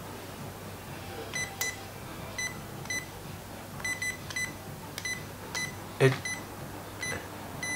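Digital multimeter on continuity test beeping in short, broken, irregular bursts as its probes are held to an old gearbox switch: the switch only makes contact intermittently, in the right spot. A few sharp clicks and one louder knock about six seconds in.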